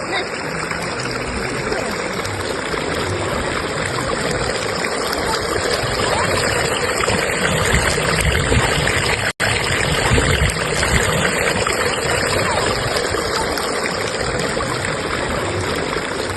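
River current rushing steadily over rocks, a continuous even roar of flowing water. The sound cuts out for an instant about nine seconds in.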